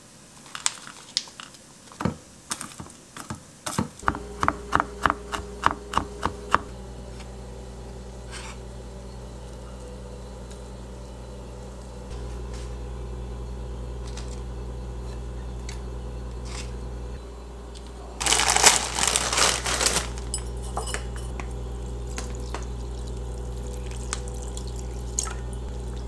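Kitchen knife chopping cilantro on a wooden cutting board in quick taps, about three a second toward the end of the chopping. Then a steady low hum with a few light clicks, and about two-thirds of the way through, two seconds of water pouring and splashing into a bowl.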